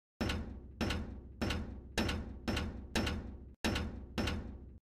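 Intro sound effect: eight heavy, evenly spaced impact hits, about one every 0.6 s, each ringing out briefly before the next, cut off abruptly near the end.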